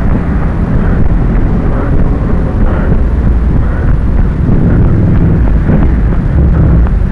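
Loud, steady low rumble of wind buffeting the microphone of a handheld camera carried at a running pace.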